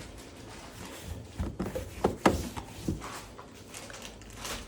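A few light knocks and clicks, about a second and a half to three seconds in, over a faint background.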